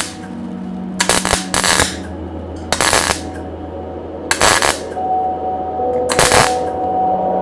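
Welder making a series of short tack welds on a turbo exhaust downpipe: about six brief crackling bursts, each a fraction of a second long, spaced a second or so apart.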